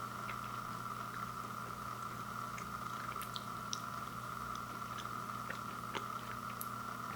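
Steady low hum and hiss with faint, scattered small clicks.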